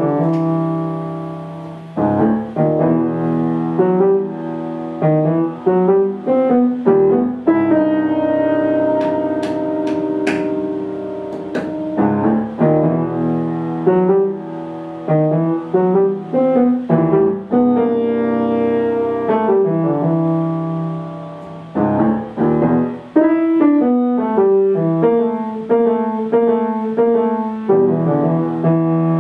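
Solo piano music: chords and melody notes struck and left to ring away.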